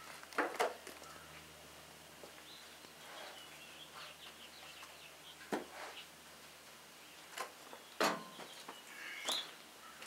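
A sawn maple slab being handled on a bandsaw sawmill's bed: a handful of sharp wooden knocks and scrapes, the loudest about eight seconds in, as the slab is worked loose and lifted off the log. Faint bird chirps in the background.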